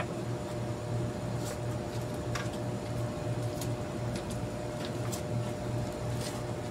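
A steady machine hum that pulses about three times a second, with a few light clicks and taps as a car radiator and A/C condenser are handled.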